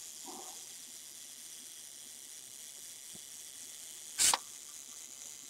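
A single sharp mechanical click about four seconds in from the Kiev-4 camera's mechanical self-timer running out and tripping the shutter release; the self-timer is working. A faint steady hiss underneath.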